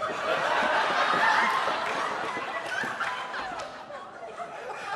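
Theatre audience laughing, swelling about a second in and then slowly dying away.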